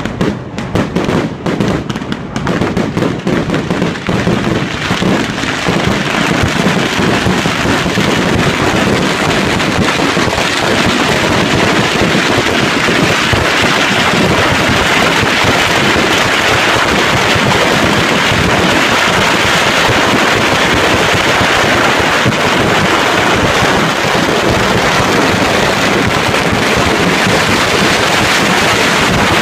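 Firecrackers going off: rapid, irregular sharp bangs in the first few seconds that merge into a loud, continuous crackling rush for the rest.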